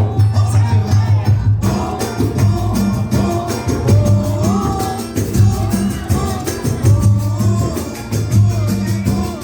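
Brazilian pagode music: a singer's melody over a pulsing bass line and busy, even percussion, with the high percussion coming in about a second and a half in.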